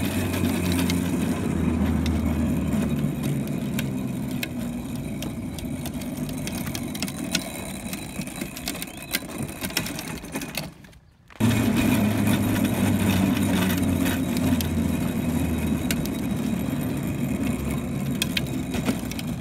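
Hard plastic wheels of a children's wagon rolling over asphalt: a steady rumble with small clicks. It cuts out briefly about eleven seconds in, then resumes.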